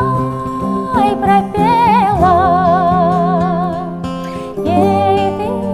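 A woman singing long held notes with a wide vibrato, accompanied by plucked strings from acoustic guitar and bouzouki.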